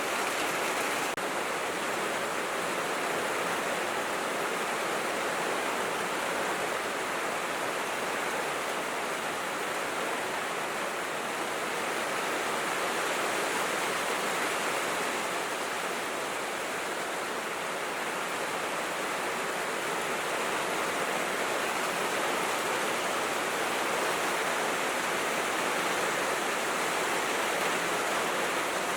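Steady heavy rain on a tin roof: an even, unbroken hiss with no single drops standing out.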